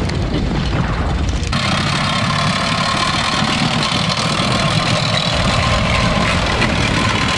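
Tracked light tank's engine running steadily as it drives over grass, with the rattle of its tracks joining suddenly about a second and a half in.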